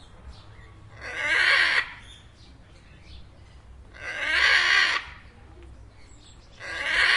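A parrot calling: three drawn-out calls, each about a second long, repeated roughly every three seconds.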